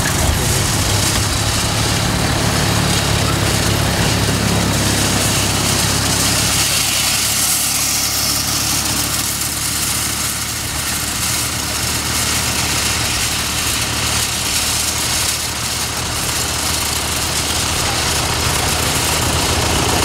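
Diesel farm tractor running steadily while pulling a wheel hay rake through windrows, its engine note strongest in the first several seconds as it passes close, easing in the middle and picking up again toward the end.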